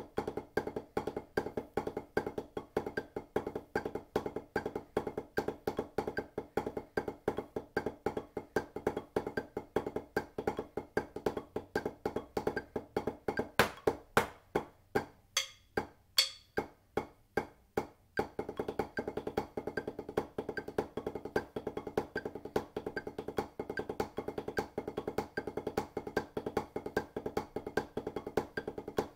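Drumsticks playing paradiddle rudiments on a practice pad at 150 beats per minute, a rapid, even run of strokes with accents. Around the middle the dense playing drops out for about four seconds, leaving single, evenly spaced clicks, then the strokes pick up again.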